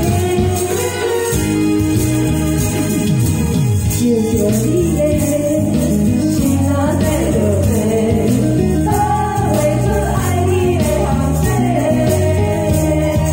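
Two women singing a duet into microphones over a backing track played through a loudspeaker, with hand tambourines shaken along to the beat.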